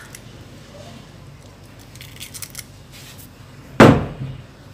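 Eggs being cracked by hand over a glass bowl: faint shell clicks and crackles, then one sharp, loud thump about four seconds in.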